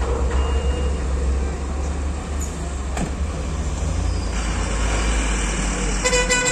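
Diesel cargo truck engines running with a deep, steady rumble as loaded trucks move slowly, with a short blast of a vehicle horn near the end.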